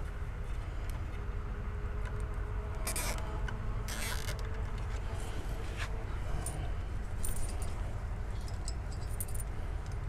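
Scattered light clicks, rattles and rustles of hands handling loose wiring and plastic parts in an SUV's front end, over a low steady hum.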